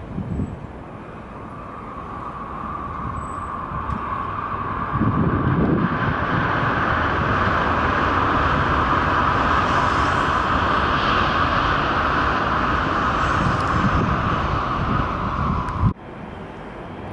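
A 16-car Shinkansen bullet train running past on an elevated viaduct: a steady rushing rumble that builds over the first few seconds, holds loud while the train passes, and cuts off suddenly near the end.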